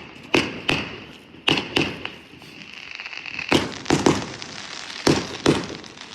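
Fireworks going off: a run of sharp bangs and pops at uneven spacing, more closely bunched in the second half. A steady high whine runs under the first half and stops about halfway through.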